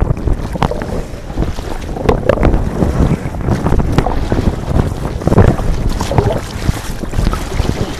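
Water splashing and sloshing close to the microphone as a kayaker moves about in the water beside the kayak, over a steady rumble of wind on the microphone.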